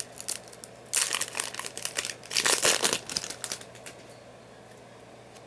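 Foil wrapper of a Yu-Gi-Oh booster pack crinkling as it is opened, in two spells of rustling starting about a second in and lasting about two seconds.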